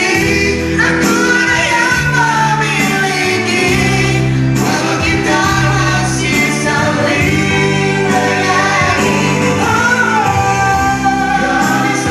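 A woman and a man singing a pop ballad duet into microphones over instrumental accompaniment.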